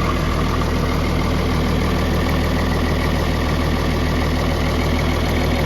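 John Deere diesel engine of a Woodsman 18X wood chipper running steadily at a constant speed, freshly started.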